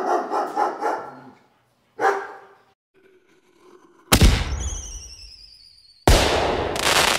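A dog barking in a quick run of barks, then one more bark about two seconds in. Then two loud firework bangs about two seconds apart: the first trails falling whistling tones, the second a crackle.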